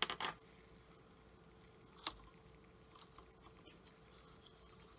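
Faint handling of a steel magazine spring and plastic follower: a few light clicks, the clearest about two seconds in, over a faint steady hum.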